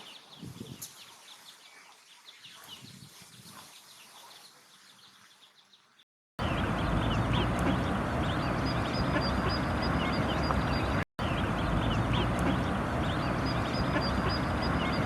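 Ducklings peeping in many short high cheeps. They are faint and fade out at first. After a moment of dead silence, a much louder recording of peeping comes in over a heavy rushing background noise, and it breaks off briefly once partway through.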